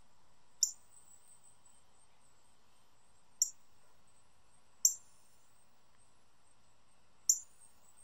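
Male northern cardinal giving four sharp, high-pitched chip calls, each very short and spaced one to two and a half seconds apart.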